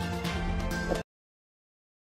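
Outro jingle music for the channel's logo animation, which cuts off abruptly about halfway through, leaving dead silence.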